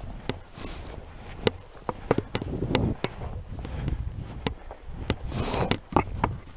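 Footsteps crunching through snow-covered bog vegetation, an uneven run of crisp crunches and soft swishes.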